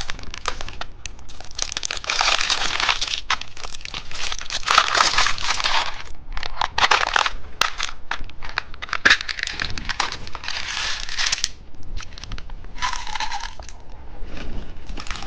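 Plastic candy packaging crinkling and rustling in repeated bursts as it is opened and handled.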